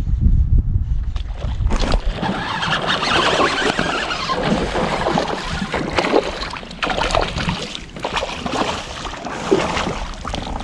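Hooked largemouth bass thrashing and splashing at the surface beside a kayak as it is played in to the net. Wind rumbles on the microphone for about the first two seconds, before the splashing starts.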